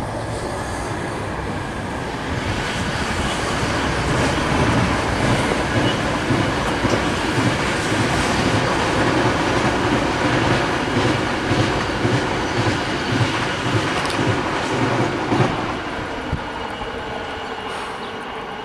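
Two coupled double-deck TGV high-speed trainsets passing: the running noise swells, holds loud with a regular clatter of wheels, then fades as the train moves away near the end.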